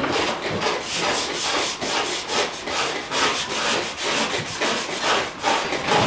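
Scraping and rubbing over a textured painted panel, a tool or abrasive worked back and forth in quick repeated strokes.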